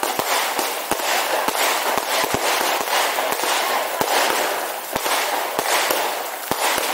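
Fireworks display going off: a dense run of sharp bangs, several a second, over continuous crackling.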